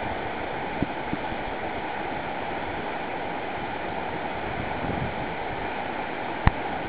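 Steady rushing of whitewater river rapids, with a few faint clicks and one sharper click near the end.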